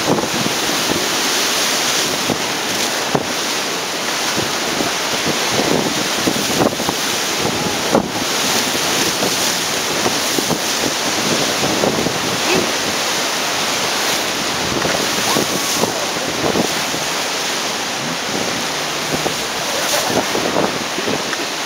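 Whitewater of a river rapid rushing loudly past an inflatable raft, with waves repeatedly crashing and splashing against and over the boat.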